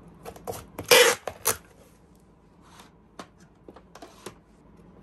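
Packing tape pulled off a handheld tape dispenser across a cardboard box, with one short, loud screech about a second in. A few light taps and knocks follow as the box is handled.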